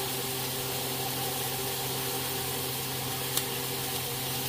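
Steady hum and hiss of a small motor-driven fan running, with one light click about three and a half seconds in.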